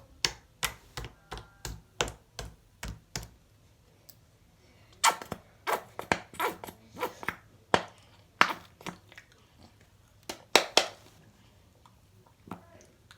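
Homemade slime squeezed and kneaded in the hands, making sharp clicks and pops: a steady run of about three a second at first, then a pause, then a more irregular run.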